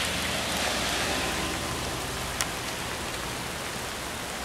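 Steady rain falling, an even hiss, heavier in the first second or so, with a single sharp tap about two and a half seconds in.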